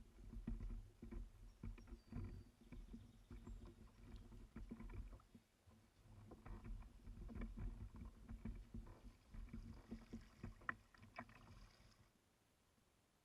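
A kayak being paddled: irregular knocks and clicks of the paddle and hull with water sounds over a low rumble. It stops abruptly about twelve seconds in.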